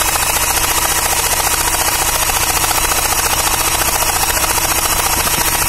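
Heavy electric drill running steadily at full speed, spinning the crankshaft of a Hero Pleasure scooter engine, spark plug removed, with a fast even pulsing in its sound. The engine is driven at high rpm without being started, to test whether the newly fitted oil pump builds good oil pressure.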